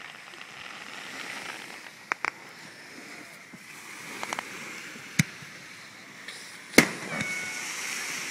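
Fireworks going off in the distance: a few scattered sharp bangs over a steady hiss, a quick pair about two seconds in and the loudest bang near the end.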